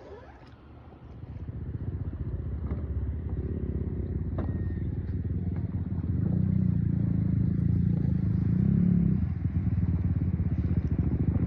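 Boat motor running with a steady low drone. It grows louder about a second in and again around six seconds in.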